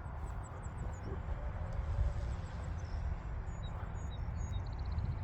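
Wind rumbling on the microphone, with small birds chirping in short high notes through it.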